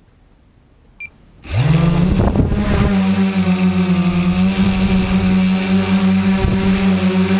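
Multirotor drone carrying a GoPro: a short beep about a second in, then its motors spin up with a quick rise in pitch and settle into a steady, slightly pulsing propeller hum as it lifts off the lawn.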